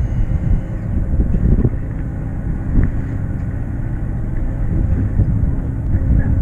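Fishing boat's engine running steadily: a low rumble with a faint hum, and a few light knocks.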